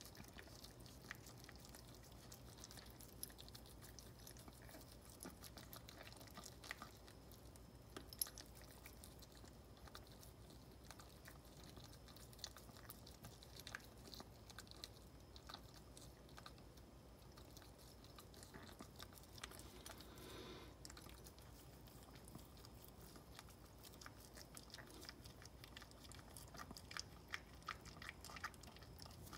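Maltese mother dog licking her newborn puppies clean: faint, scattered wet licking and mouth-smacking clicks, more frequent near the end.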